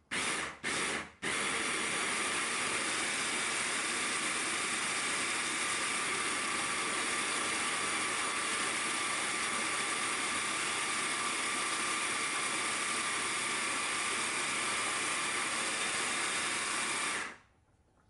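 Electric blender pulsed twice briefly, then run steadily for about sixteen seconds, grinding moringa leaves, cashews, garlic and Parmesan into pesto; it cuts off suddenly near the end.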